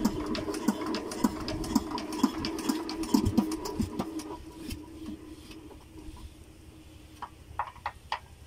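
Small diesel generator engine being turned over, with regular knocks about twice a second over a steady hum, the sound of its fuel injection starting. The knocking and hum die away four to five seconds in, leaving a few faint clicks near the end.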